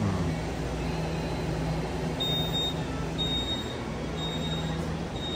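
Steady hum of store appliances and ventilation, with a short high electronic beep repeating about once a second from about two seconds in.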